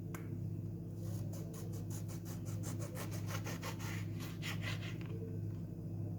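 A knife cutting slits into an orange's peel: a run of short, quick cutting strokes, several a second, pausing briefly near the end. A steady low electrical hum runs underneath.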